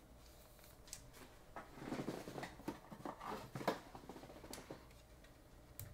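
Faint rustling and scattered light clicks of a trading card and clear plastic card sleeves being handled, busiest through the middle, with one sharper click near the end.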